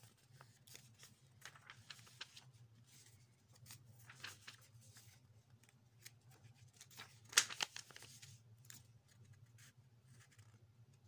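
Faint rustling, scraping and small clicks of hands handling plastic packaging, with a louder crackle about seven and a half seconds in, over a steady low hum.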